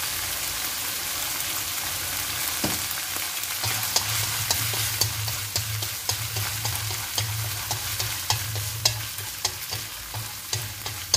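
Minced lean pork with green chilli sizzling in oil in a non-stick pan as it is stir-fried dry. Wooden chopsticks stir it, with light clicks against the pan from a few seconds in, a few every second.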